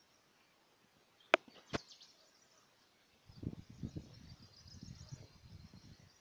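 Quiet outdoor ambience in a hillside field: two sharp clicks close together a little over a second in, then a low, uneven rumble from about three seconds in, with faint high chirping in the background.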